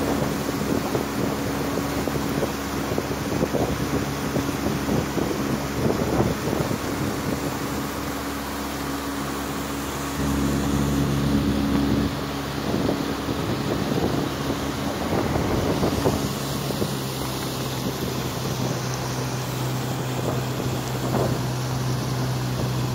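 A pontoon boat's motor running under way over a rush of wind and water. The engine note rises briefly about ten seconds in, then settles to a lower, steadier hum for the last third.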